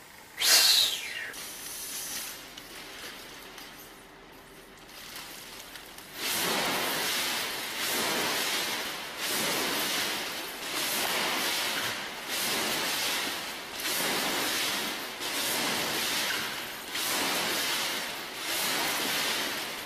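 Rhythmic whooshing of a human-powered ornithopter's large flapping wings, one stroke about every second and a half. It starts about six seconds in, after a quieter stretch of faint hiss.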